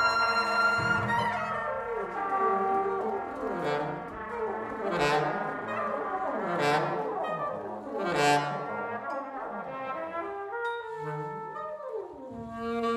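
Live jazz with brass in front: trombone and trumpet playing repeated pitch slides that fall and rise again. Four sharp accented hits land about a second and a half apart in the middle.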